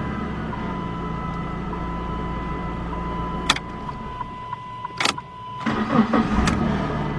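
2002 Chrysler PT Cruiser's four-cylinder engine running steadily just after a battery replacement, with a couple of sharp clicks. It dips about five seconds in, then cranks and catches again near the end.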